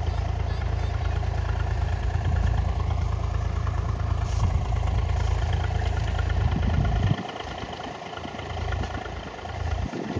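Tractor engine running steadily as it pulls a potato digger through the field. The heavy low rumble drops away abruptly about seven seconds in, leaving the engine quieter.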